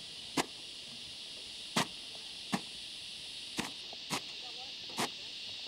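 Tent pegs being knocked into the ground at the edge of a tarp: six short, sharp knocks at uneven intervals, over a steady high drone of insects.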